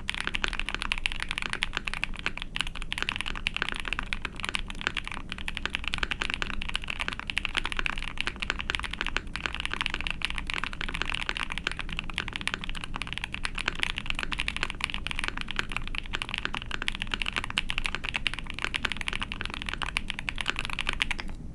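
Continuous fast typing on an ai03 Vega 65 mechanical keyboard fitted with lubed linear Zaku BCP frankenswitches (Zaku stems in H1 bottom housings with Cherry tops) on a POM plate under GMK keycaps: a dense, unbroken stream of keystroke clacks.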